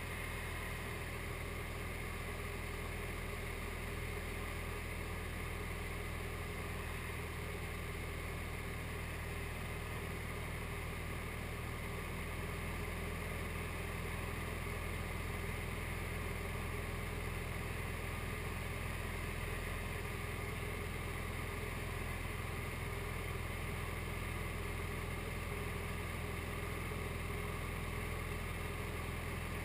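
SD-1 Minisport light aircraft's engine running steadily in flight, a constant drone that gets slightly louder about twelve seconds in.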